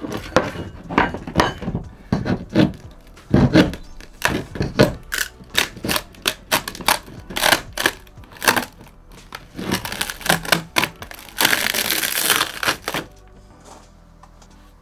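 Pry bar levering rotten wood out of a fibreglass boat's cabin front: a quick run of knocks, cracks and splintering. About eleven seconds in comes a longer harsh tearing, scraping stretch as a section of the rotten wood comes away.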